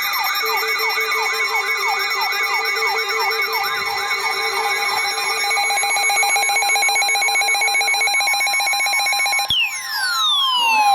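Electronic siren rising and falling about three times a second, then speeding into a rapid warble, over several steady held tones. About nine and a half seconds in it cuts off abruptly and a single tone sweeps steadily down in pitch.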